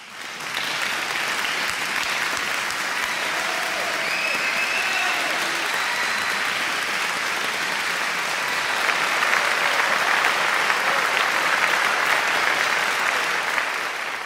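Applause from a large audience, many hands clapping in a dense, steady patter that swells slightly about nine seconds in.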